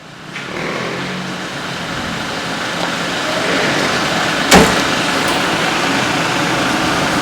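Steady engine noise of a motor vehicle or machine, swelling in at the start, with one sharp knock about four and a half seconds in.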